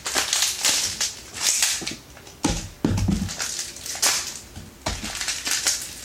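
Plastic packaging crinkling and crackling in irregular bursts as a toy booster pack is handled and opened, with a duller bump about two and a half seconds in.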